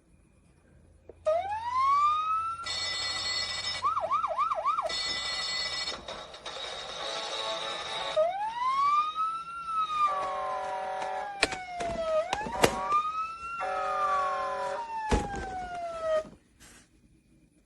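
Electronic siren sound effects from a PAW Patrol fire station toy playset. A series of rising-and-falling siren wails, a quick four-pulse warble and bursts of bleeping electronic tones start about a second in and stop about a second before the end.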